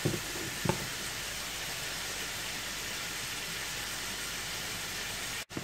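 Steady hiss of soup simmering gently in a covered steel pot, with two light clinks of the glass lid being set on within the first second.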